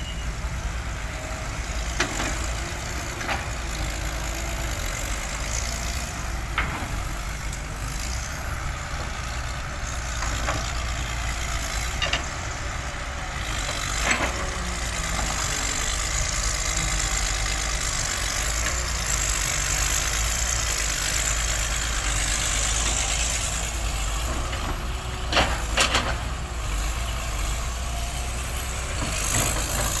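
Caterpillar hydraulic excavator's diesel engine running steadily as it digs and lifts sand, with a few sharp knocks as the bucket works, two close together near the end.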